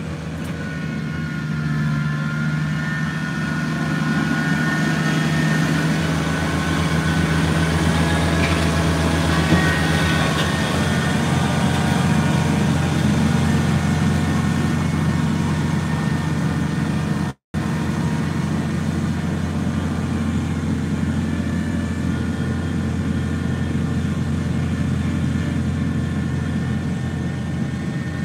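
Kubota BX23S compact tractor's three-cylinder diesel engine running steadily while the tractor plows snow with a rear blade.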